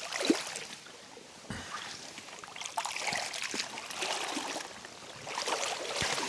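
River water sloshing and splashing around a person's legs as they wade through deep water, in uneven surges with a few dull knocks.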